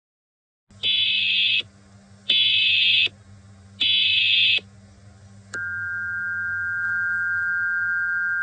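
Emergency Alert System alert tones: three identical short bursts of screechy data-header tones, about a second and a half apart, then about five and a half seconds in a steady, piercing two-note attention tone begins and holds.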